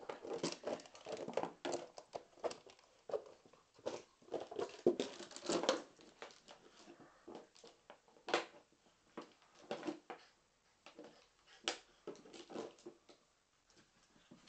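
Irish Water Spaniel puppy playing with its toys on a carpet: irregular knocks, patter and crinkling rustles, busiest in the first half and thinning out later.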